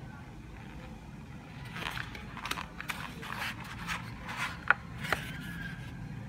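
Molded paper-pulp phone tray being handled and pressed by fingers: a run of scraping and rustling from about two seconds in, ending in two sharp clicks.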